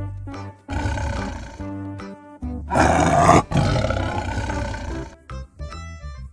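A big cat's roar sound effect: two long, rough roars, the second louder, over bouncy keyboard background music.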